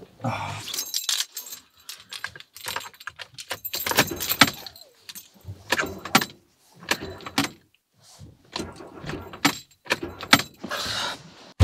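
Irregular metallic jangling and clattering: a string of sharp clicks and knocks with short pauses between them.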